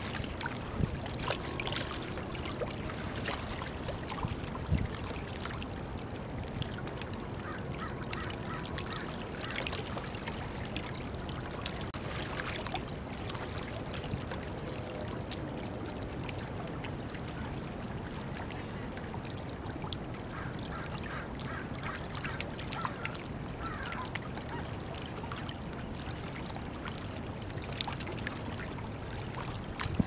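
Water lapping and trickling among shoreline rocks, with faint bird calls now and then and a few short sharp knocks.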